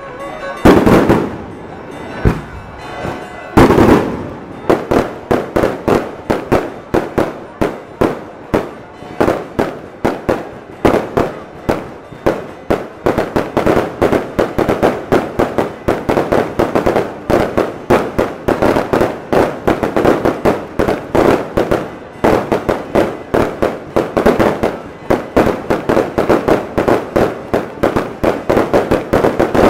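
Aerial fireworks display: two big bangs in the first few seconds, then a rapid barrage of sharp bursts, about two or three a second, as shells break overhead.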